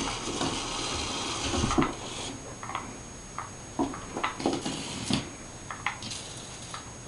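Rubbing and scraping for about two seconds, then scattered light knocks and taps: a cat playing with a remote-control toy mouse.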